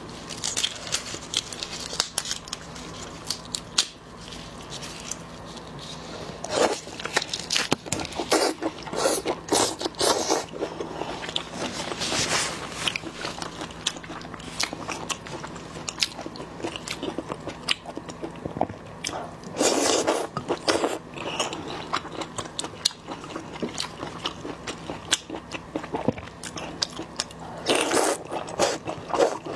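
Close-miked eating of marinated whole shrimp: shells pulled and peeled by gloved hands, then the shrimp bitten and chewed with crunching and crackling. The crunching comes in several louder spells, the loudest near the end.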